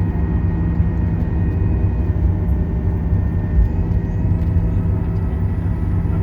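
Steady rumble and engine hum of a Boeing 737-900ER's CFM56 jet engines and airframe, heard inside the cabin while the airliner rolls on the ground after landing, with a few steady tones over the low rumble.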